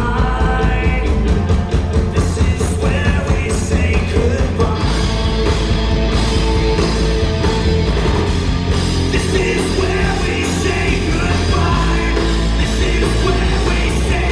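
A live rock band playing loudly, with electric guitars, bass guitar and drums.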